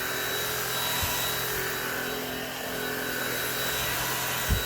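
Fabuletta cordless stick vacuum running steadily on a hardwood floor, a constant motor whine and suction hiss. Two short low knocks, the louder one near the end, as the head bumps on the floor.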